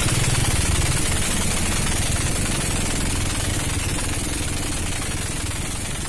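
Boat engine running steadily, a fast-pulsing low rumble under a loud hiss, slowly easing in level.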